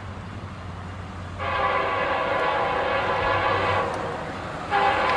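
Norfolk Southern SD60-series diesel locomotives approaching under power, their engines running as a steady low rumble, while the lead unit's air horn sounds two long blasts for the grade crossing. The first blast starts about a second and a half in; the second starts near the end and runs on.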